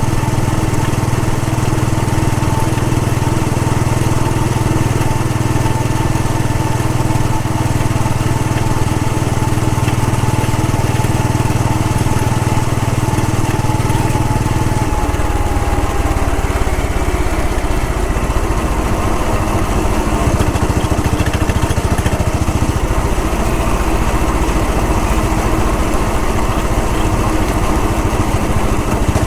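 Royal Enfield Bullet 500 EFI's single-cylinder four-stroke engine running steadily on the move. About halfway through, its note changes to a lower, rougher sound.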